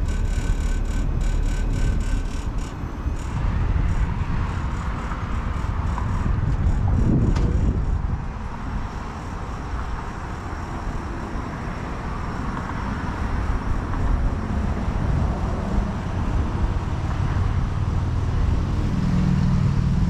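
Day & Night variable-speed heat pump outdoor units running in cool mode: the condenser fan's steady rush of air over the low hum of the inverter compressor.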